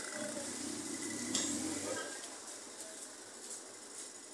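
Market-street background: an indistinct murmur of distant voices that fades out after about two seconds, with a sharp click about a second and a half in and a few lighter clicks after.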